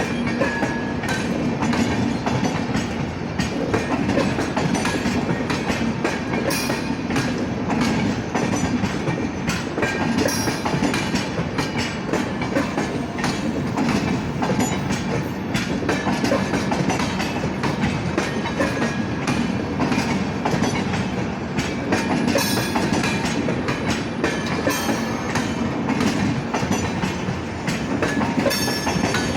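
LHB passenger coach wheels running over rail joints at speed: a continuous rolling rumble with the repeated clickety-clack, the 'tadak tadak' of wheelsets hitting the joints.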